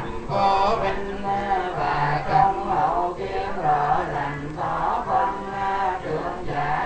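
Group of Buddhist monks and lay followers chanting a sutra together in unison, many mostly male voices in a steady sung recitation.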